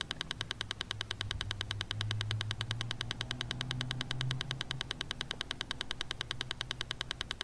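Rapid, evenly spaced clicking pulses, about nine a second, over a low steady hum: the pulsing background track under a guided relaxation recording.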